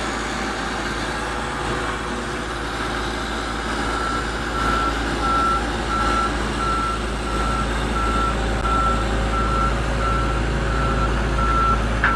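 Truck reversing alarm beeping at one steady pitch about twice a second, starting a third of the way in, over the low rumble of a truck engine.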